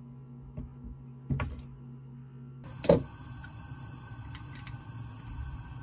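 A couple of light clicks as wooden fish cake skewers are handled over a wooden cutting board. Then, about two and a half seconds in, a steady hiss of boiling water in an earthenware pot on a gas burner sets in, with one sharp knock just after, the loudest sound, as soup sauce is squeezed into the pot.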